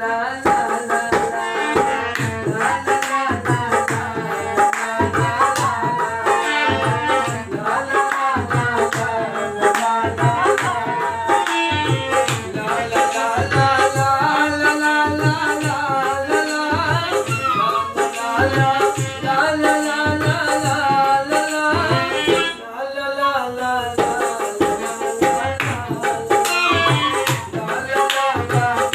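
Live ghazal music: a dholak drum keeping a steady rhythm under harmonium and bansuri flute, with a man singing. A short break in the music about 22 seconds in.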